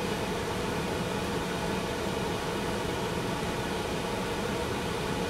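Kitchen exhaust fan running loudly and steadily, an even rushing noise with no change.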